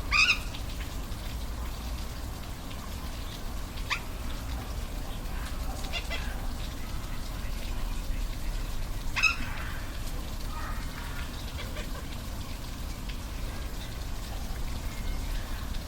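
Waterfall running as a steady low rush, with brief high-pitched animal calls about four times, the loudest near the start and about nine seconds in.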